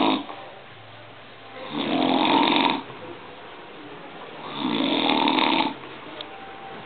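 A man snoring in his sleep. There are two long snores of about a second each, roughly three seconds apart, and the tail of another right at the start.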